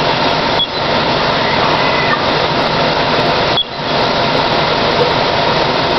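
Steady, loud mechanical drone of fire apparatus and equipment running at a working fire, dipping out briefly twice.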